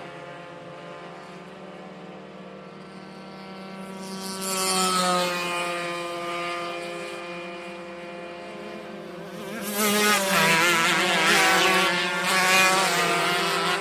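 Go-kart engines running at high revs as karts pass by: one kart goes by about four seconds in, its pitch dropping as it passes, then several karts pass close together from about ten seconds in, louder, with several engine notes wavering over one another.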